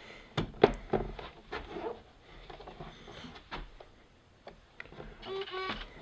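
Laptop chassis being handled and moved on a wooden table: a run of sharp plastic knocks and clunks in the first two seconds, then smaller taps. Near the end comes a short steady pitched tone.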